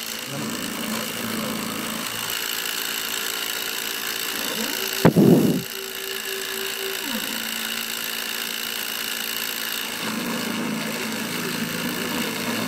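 CNC engraving machine cutting into copper sheet. Its spindle runs with a steady whine, at a speed the uploader calls too slow for copper, and the stepper motors buzz as the bit traces the letters. About five seconds in there is a sharp click and a short loud burst, then a steady stepper tone for about two seconds, falling away as the lifted tool moves to its next position.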